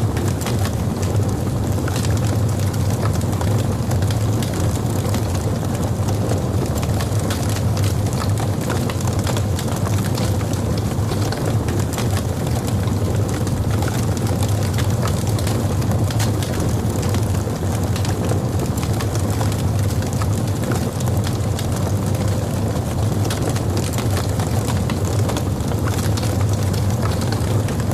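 Logs burning in a fireplace: a steady low rumble of flame with frequent small crackles and pops from the burning wood.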